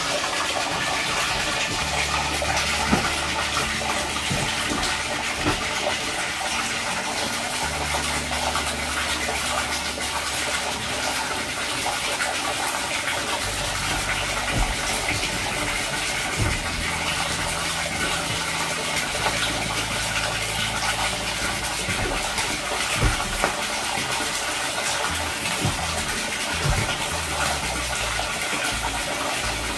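A steady stream of water pouring and splashing into the shallow water of an inflatable pool, an even rushing noise with no break.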